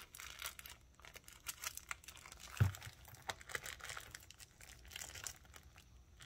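Plastic candy wrapper crinkling and small items rustling as they are pressed into a small zip pouch: a run of light crackles and clicks, with one louder dull knock about two and a half seconds in.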